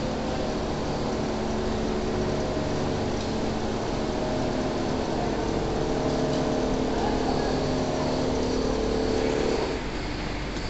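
Richpeace single-needle computerised quilting machine running: a steady mechanical hum with several held tones over factory noise. The tones stop shortly before the end.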